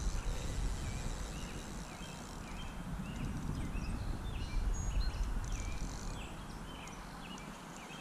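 Low rumbling wind buffeting the microphone, easing off after about six seconds, over a regular series of short high chirps from a small calling animal, about two a second.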